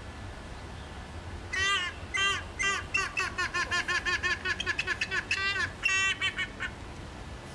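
Yellow-casqued hornbill calling: a run of loud, short calls over about five seconds, each sliding down in pitch, spaced out at first and then quickening to several a second before stopping.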